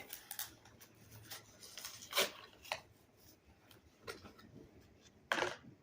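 Hot Wheels blister-card packaging being opened: crinkling of the plastic blister and cardboard with short sharp rips, the loudest about two seconds in and near the end.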